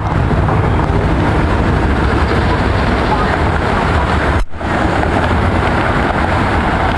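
Steady loud rushing noise of jet aircraft engines at an airport, with a brief dropout about four and a half seconds in.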